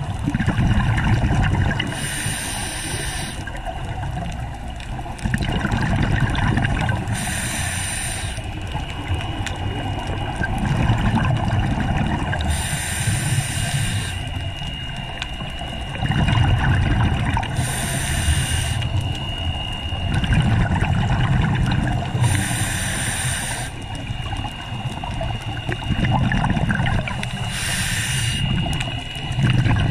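Scuba diver breathing through a regulator underwater: a short hiss of inhaled air through the demand valve about every five seconds, six times, each followed by a longer low gurgling of exhaled bubbles.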